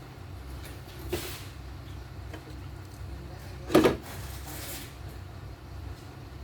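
A short, sharp clunk just under four seconds in, and a fainter knock about a second in, over a steady low rumble.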